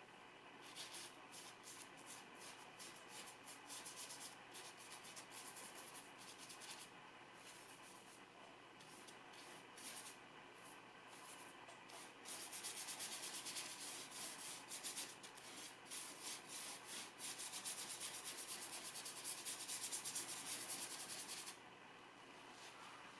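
Flat hog-bristle brush scrubbing oil paint onto paper in short separate strokes. About halfway through the scrubbing becomes denser and louder, then stops a couple of seconds before the end.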